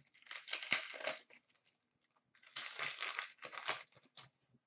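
A 2015-16 Upper Deck Champs hockey card pack wrapper being torn open, crinkling and tearing in two bursts about two seconds apart.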